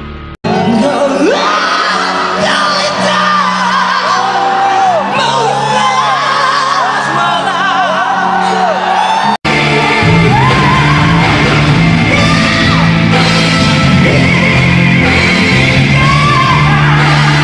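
Male rock singer belting high chest-voice notes over band accompaniment, with repeated swooping high notes. There is an abrupt cut about half a second in, and another about nine seconds in, where it switches to a louder, fuller band recording with more sung lines.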